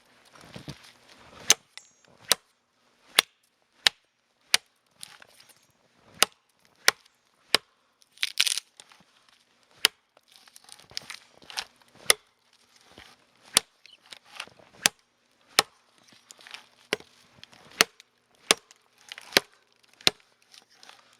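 Wood being chopped with a blade into chips and kindling to light a campfire: a steady run of sharp chopping strikes, a little more than one a second, with a brief splintering crack about eight seconds in.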